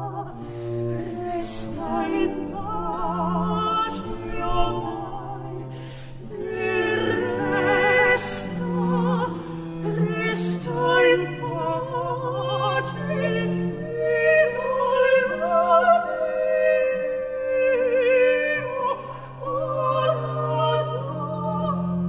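Classical operatic singing with strong vibrato over long sustained low bowed-string notes, with brief breaths between phrases; the song is an Italian farewell love song.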